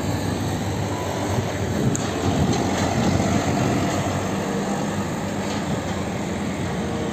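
Large diesel truck engine running as a car-carrier truck with an empty rack drives past, with steady road and traffic noise, a little louder near the middle.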